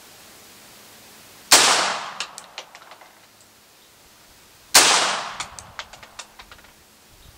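Vostok Margolin semi-automatic .22 Short target pistol firing two shots a little over three seconds apart. Each crack is followed by a quick run of fainter sharp cracks dying away over about a second.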